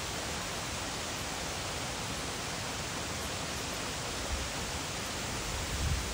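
Steady rushing of a forest stream's flowing water, with a couple of low bumps near the end.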